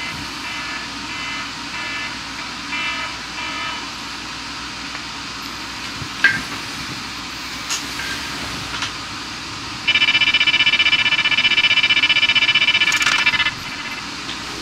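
Smartphone alarm going off: faint short beeps repeating in bursts, then about ten seconds in a much louder, rapidly fluttering alarm tone that lasts about three and a half seconds and cuts off suddenly.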